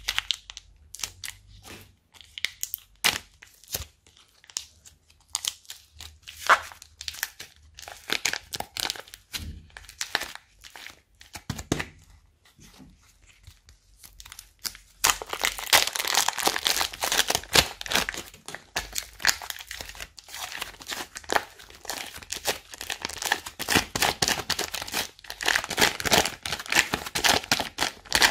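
Slime being squeezed out of plastic bags and pulled apart by hand: crinkling plastic and scattered sticky pops and crackles at first. About halfway through it turns into a dense, continuous crackle as the slime is stretched.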